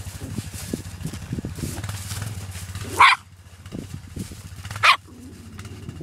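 A small rat terrier barking twice, two short barks about two seconds apart, the first about three seconds in.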